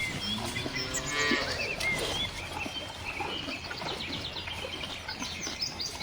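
A cow mooing once, about a second in, with birds chirping around it.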